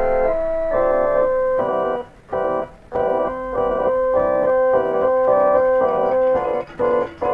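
Trailer music played on an organ-like keyboard: held chords and a melody line in steady notes, cut by short breaks about two and three seconds in and again near the end.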